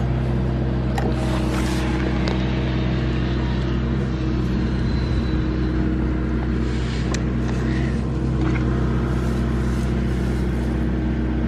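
A steady low mechanical hum at an even level, with a few brief faint clicks and rustles over it.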